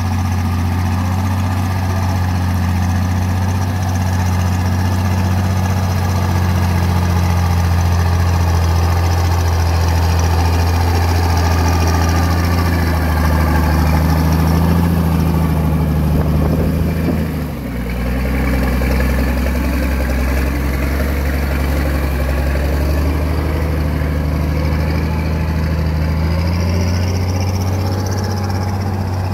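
Engine of a homemade sugarcane-hauling truck running steadily as the loaded truck drives slowly up close and past, with a brief dip in level about two-thirds of the way through.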